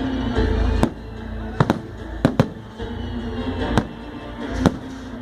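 About six sharp bangs at irregular intervals, two of them close together in the middle, over background music.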